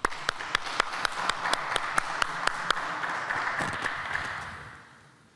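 Applause: sharp hand claps about four a second for the first two and a half seconds over a softer wash of clapping, which dies away over the last second or so.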